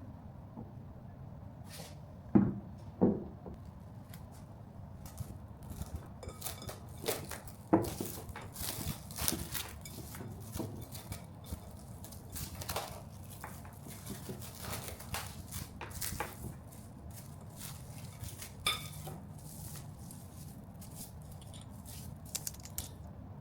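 Kitchen utensils and dishes being handled while baking: two sharp knocks a couple of seconds in and another near eight seconds, then a run of light clicks, taps and clatter, over a faint low hum.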